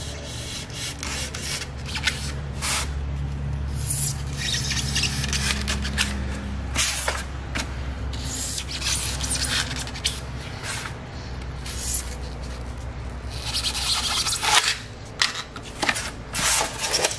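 A knife blade cutting and scraping through foam in repeated, uneven strokes.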